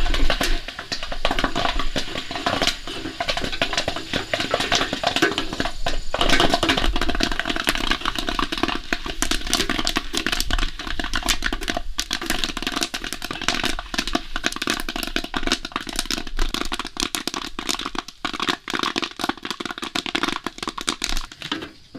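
Popcorn kernels popping in a pot, a dense irregular crackle of pops that thins out slightly near the end as the pot fills with popped corn.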